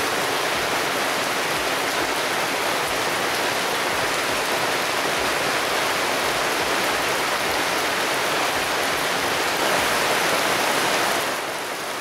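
Heavy monsoon rain pouring down on mud, puddles and leaves: a dense, steady hiss, a little quieter near the end.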